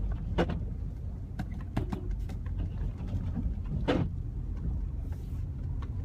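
Low steady rumble of an almost 20-year-old Honda's engine and tyres, heard from inside the cabin while driving on snow-covered streets, with a few short knocks, the loudest about four seconds in.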